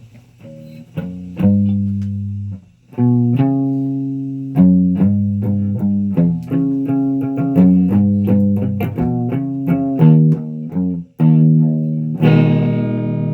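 Electric guitar played through an amplifier: a slow riff of plucked single notes and low held notes, each dying away, ending in a fuller, brighter strummed chord near the end.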